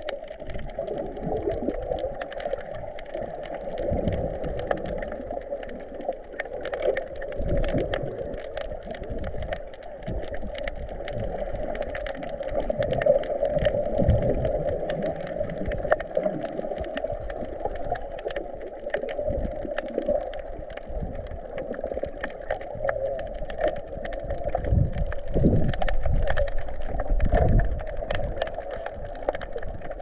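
Underwater sound picked up by a GoPro held below the surface while snorkeling: muffled rushing water with irregular low surges and a constant crackle of fine clicks.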